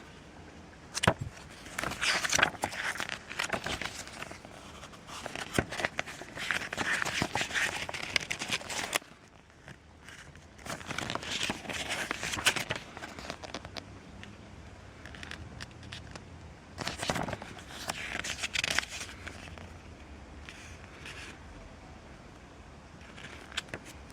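Handling noises: bursts of rustling and scraping, with a sharp click about a second in.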